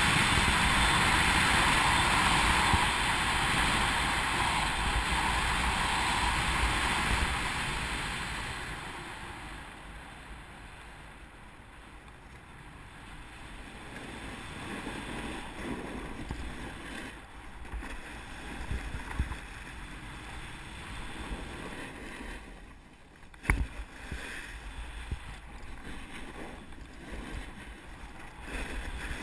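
Wind rushing over a helmet-mounted action camera and a snowboard scraping over snow while riding downhill. It is loud and steady for the first several seconds, then settles to quieter, uneven scraping. There is one sharp knock about three quarters of the way through.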